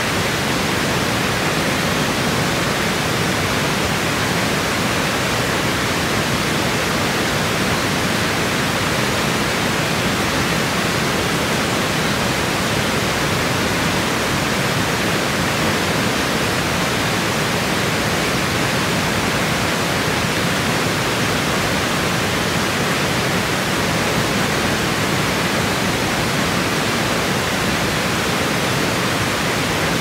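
Water rushing steadily over a low weir and down rocky rapids, a constant even rush with no changes.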